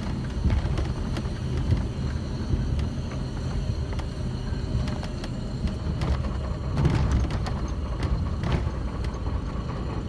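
A motor vehicle's engine running with a steady low rumble, with scattered clicks and rattles over it.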